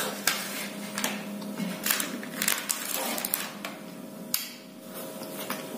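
Close-up eating sounds from biting and chewing a chewy milk ice cream bar: irregular wet smacks and clicks of the mouth.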